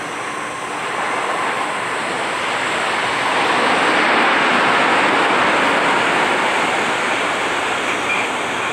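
Jet airliner engines running as the plane passes close by on takeoff or landing, the noise swelling to a peak about four seconds in and then easing slightly.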